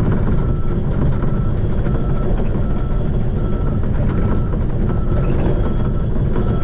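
Shantui bulldozer's diesel engine running steadily, with a reversing alarm beeping at a regular pace of about one beep every 0.7 seconds, the sign that the machine is backing up.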